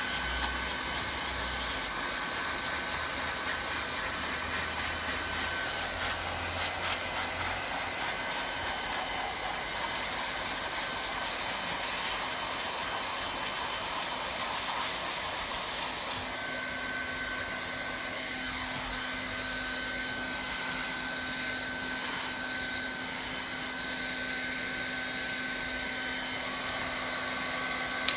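Hand-held hot-air plastic welding gun running steadily as it welds a rod into a vinyl flooring seam: its blower hiss with a steady high whine. A single sharp knock near the end.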